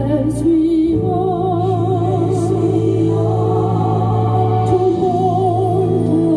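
Background music: a slow melody with a wavering vibrato held over steady low chords.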